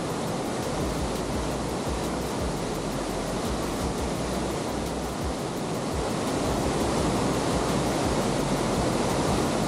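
Waterfall: a steady rush of falling water that grows a little louder about six seconds in.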